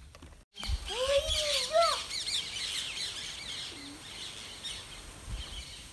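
Many birds chirping at once, starting abruptly about half a second in and thinning out a little toward the end. There is one louder sliding call in the first couple of seconds.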